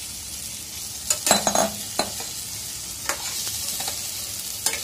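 Masala frying in oil in a steel pan with a steady sizzle, while a steel spatula stirs boiled eggs through it. The spatula scrapes and knocks against the pan several times, loudest about a second in.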